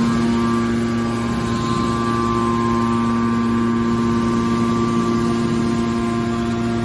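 A machine running steadily: a constant hum with a fixed whine of several steady tones, unchanging throughout.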